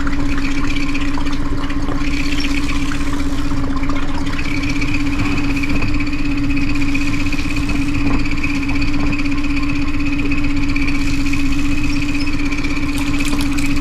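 Pontoon boat's outboard motor idling steadily with an even hum, left running to charge the batteries.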